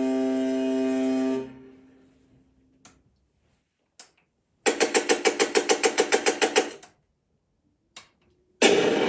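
Sound effects played through a small speaker by an RC model sound module, one after another, with short clicks between them. First a steady horn-like tone cuts off about a second and a half in. Then comes a two-second run of rapid even pulses, about seven a second, and near the end a loud, noisy rumbling effect starts.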